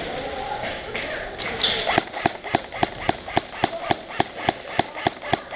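Airsoft rifle firing a steady string of single shots, about four a second, starting about two seconds in.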